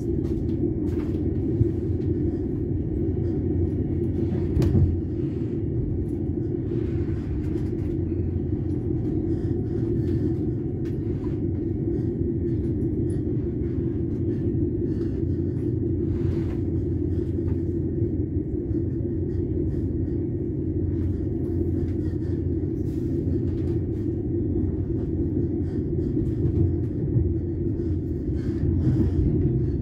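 Passenger train running along the line, heard from aboard: a steady low rumble of the wheels on the rails, with scattered faint knocks, one a little louder about five seconds in.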